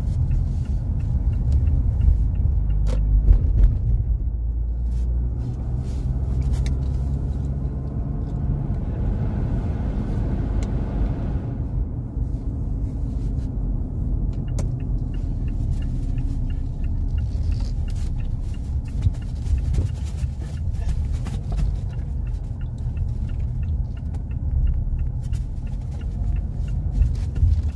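Car cabin road noise: the steady low rumble of a car being driven, with a brief rise in hiss about ten seconds in.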